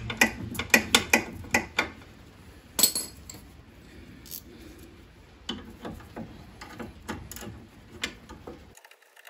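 Ratchet wrench clicking in short runs as a 14 mm nut on the lower ball joint of a sway bar drop link is undone, the nut freed and coming off easily. Scattered metallic clicks and taps follow.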